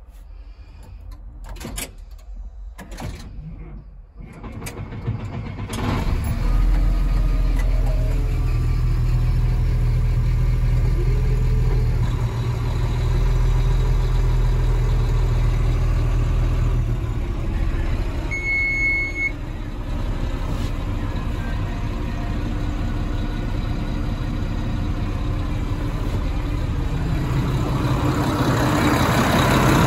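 Caterpillar 972M XE wheel loader's Cat C13 six-cylinder diesel cranking and catching about six seconds in, then idling steadily. A single short electronic beep sounds a little past halfway, and the engine gets louder near the end.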